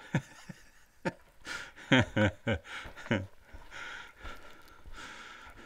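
A man's footsteps on a rocky mine floor, with his breathing and a few short murmurs in quick succession about two seconds in.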